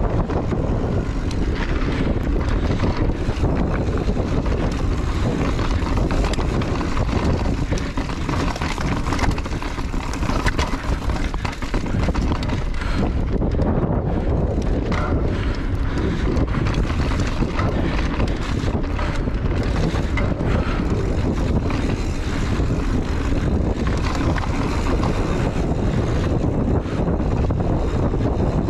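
Mountain bike descending a dry dirt trail: tyres rolling over loose dirt and rocks with steady rattles and knocks from the bike, under heavy wind noise on the microphone.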